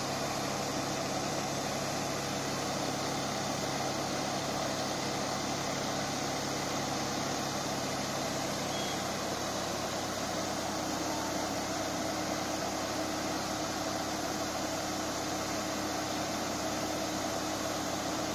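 Tractor-mounted Godavari 24-inch Reverse Pomo air-blast sprayer running: a steady rush of air and mist from its fan over the even hum of the engine driving it.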